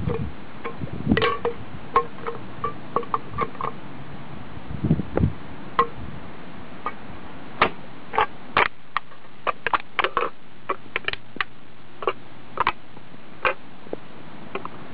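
An aluminium drink can crackling and crinkling as it is crushed flat under a harness boot's sole, in an irregular run of sharp clicks, with a dull thump about five seconds in.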